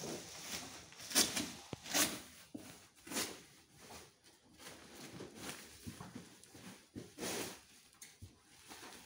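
Large cardboard carton and its plastic wrapping rustling and scraping as it is handled and tipped upright on a tiled floor, in several separate bursts.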